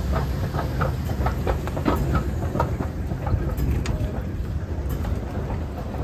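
Footsteps crunching on a thin layer of fresh snow on paving, a steady walking rhythm of about two to three steps a second, over a steady low rumble.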